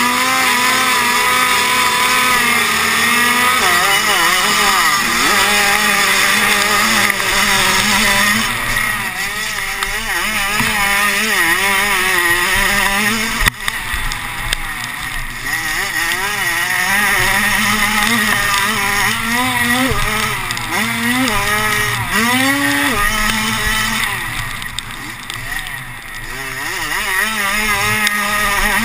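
Several racing engines running hard, heard from an onboard camera. Their pitch holds steady for the first few seconds, then rises and falls again and again as the throttles open and close through the race. There is a short sharp knock about a third of the way in.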